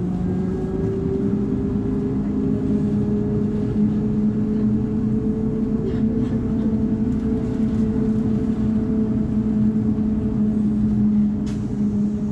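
Volvo B58 six-cylinder diesel engine of a 1983 Marcopolo Torino bus running under way, its pitch rising slightly over the first couple of seconds and then holding steady. A short sharp click about eleven seconds in.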